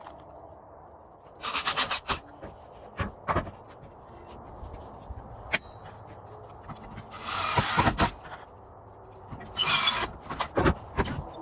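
Wooden face-frame pieces being handled: short bouts of rubbing and scraping of wood on wood, three of them, with scattered sharp knocks between.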